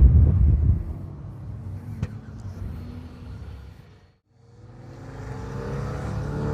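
A 4x4's engine revving hard on a sand-dune climb, loud for the first moment and then fading away. After a brief drop-out about four seconds in, another engine comes up, rising in pitch and growing louder near the end.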